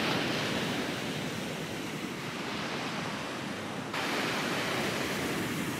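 Ocean surf breaking and washing up on a beach, a steady rush of waves that gets suddenly a little louder about four seconds in.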